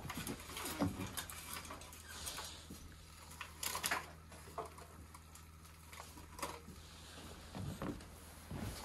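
Scattered light clicks and knocks of kitchen handling at a wood-burning cook stove, as pans, utensils and a foil tray are touched, over a steady low hum.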